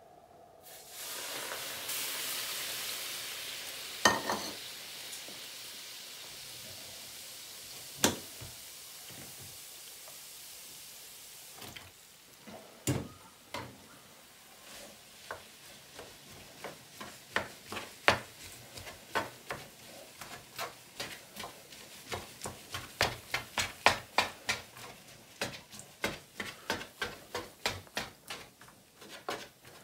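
Liquid poured into a hot frying pan sizzles about a second in and slowly fades, with a few sharp clanks of pans and utensils. From about twelve seconds in, spaghetti is stirred and tossed in the non-stick frying pan with a utensil: quick scraping clicks, about two a second.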